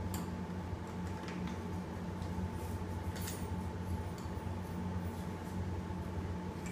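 Scattered light clicks and taps of a baby walker's plastic tray toys being handled, over a steady low hum.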